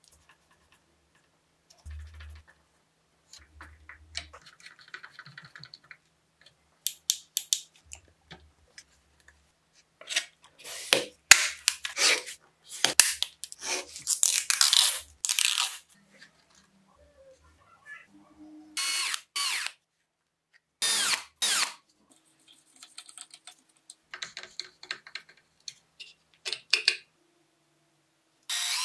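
Bench handling noises: scattered clicks and taps from parts and a small clear acrylic sheet, a run of loud rapid strokes about ten seconds in, and two short steady bursts of a small power tool later on.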